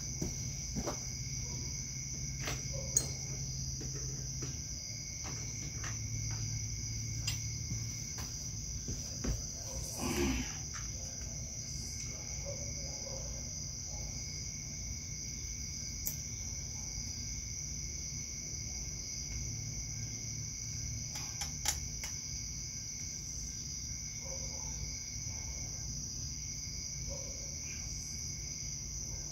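Steady high-pitched trilling of crickets throughout, with a few sharp clicks and knocks as the outboard lower-unit parts are handled, the loudest about three seconds in and again about two-thirds of the way through, and a brief rustle about a third of the way in.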